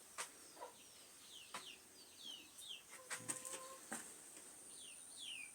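Chickens in a poultry house, faint: a run of short high falling peeps, several a second, with one lower drawn-out call a little past halfway. A few light knocks and a faint steady high whine are also there.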